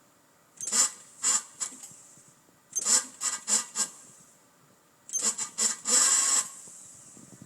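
Volvo S40 T5's starter clicking in three short bursts of rapid clicks as the key is turned, while the engine fails to start in cold weather.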